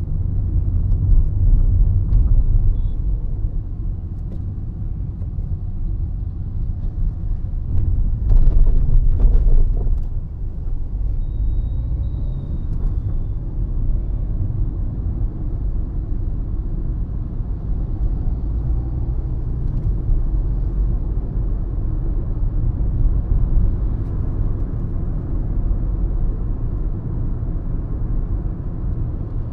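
Car driving: a steady low rumble of engine and road noise heard from inside the cabin, swelling louder for a couple of seconds about eight seconds in.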